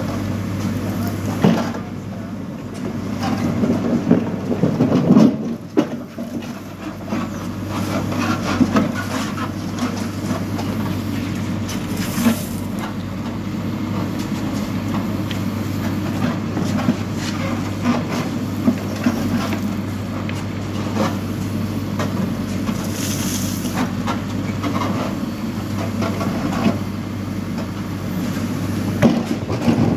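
Hidromek backhoe loader's diesel engine running steadily under hydraulic load as the backhoe arm works, with scattered knocks and scrapes from the bucket in the dirt and gravel.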